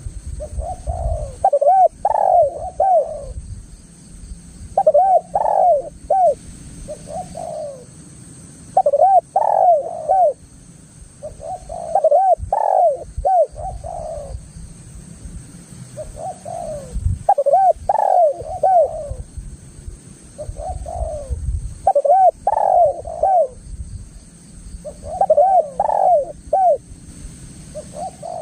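Spotted dove (tekukur) cooing, its phrases of several rounded, rising-and-falling coos repeating every three to four seconds, with a low rumble underneath.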